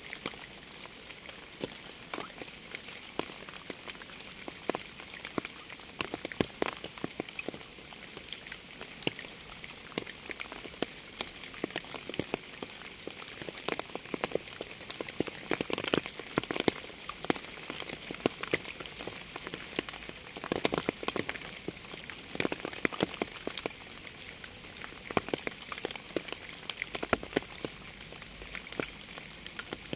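Steady rain: an even hiss with many separate drops striking close by, coming thicker for a few seconds around the middle.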